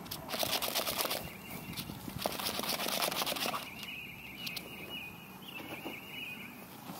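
Rustling and brushing in grass from a person and a fox moving about on a lawn, in two louder bursts in the first half. A faint, wavering high chirping runs underneath.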